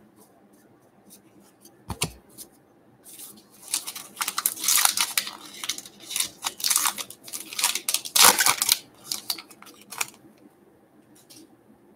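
Trading-card pack wrapper being torn open and crinkled, with a dense run of crackling for several seconds and two sharp knocks, one about two seconds in and one near eight seconds.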